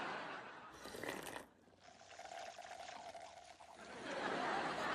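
Sitcom liquid sound effect, pouring and gurgling, with a steady held tone in the middle.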